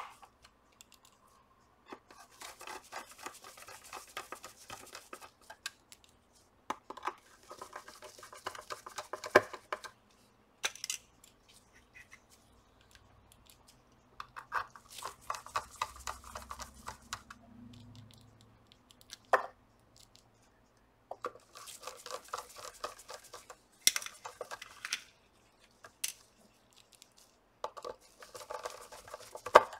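Small screws being driven into the soundbar's housing with a hand screwdriver: about five bursts of rapid gritty clicking a few seconds each, with a few sharp single clicks between them.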